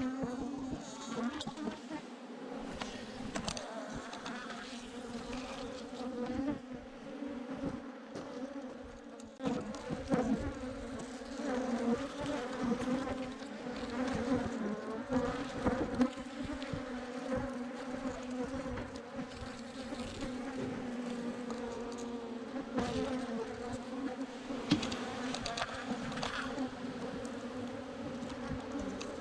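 A swarm of Africanized honey bees buzzing steadily at a low, even pitch, with a few sharp knocks now and then.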